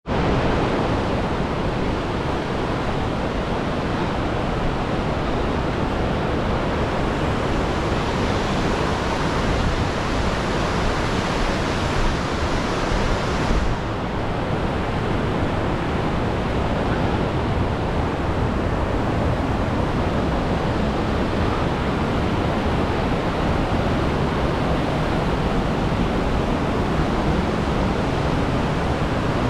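Whitewater rapids of a mountain river rushing steadily, with a slight change in the hiss about halfway through.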